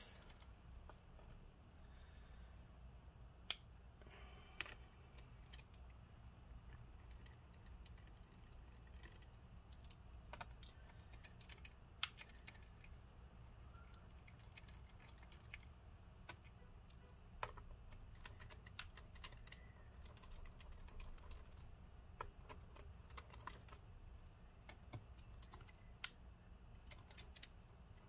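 Faint, irregular small clicks and ticks of a T5 Torx screwdriver working the screws out of a laptop's bottom cover and the tiny screws being set down, a few clicks sharper than the rest, over a low steady hum.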